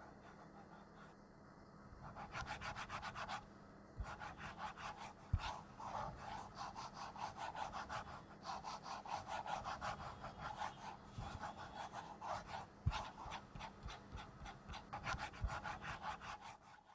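Ballpoint pen scribbling hard back and forth across a paper diary page on a wooden desk: rapid scratching strokes starting about two seconds in, with a short pause near four seconds and a few dull knocks. It cuts off suddenly at the end.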